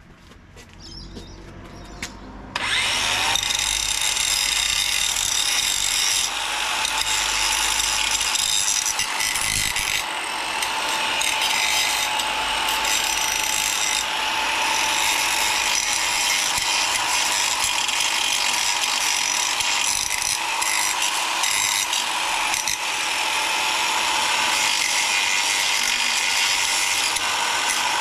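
Electric angle grinder spinning up about two and a half seconds in, then grinding steadily: a high motor whine over the hiss of the disc on stainless steel as an edge is taken down.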